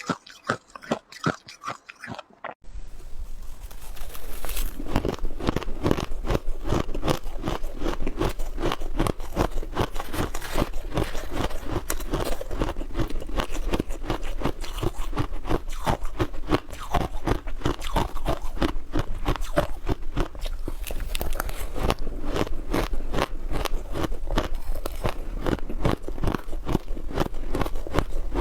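Ice being bitten and chewed close to the microphone: a few quieter chewing clicks, then about two and a half seconds in, loud, rapid, continuous crunching.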